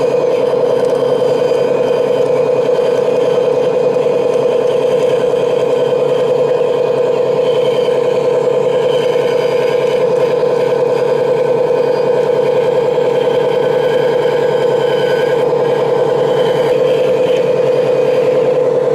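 Large-scale radio-controlled Caterpillar hydraulic excavator running as it crawls on its tracks onto a lowboy trailer: a loud, steady mechanical whine that holds one pitch throughout.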